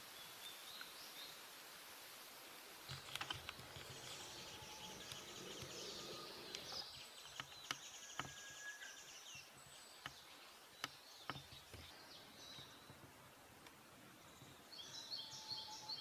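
Faint outdoor ambience with small wild birds chirping and trilling here and there, a short run of quick chirps near the end, and a few light clicks.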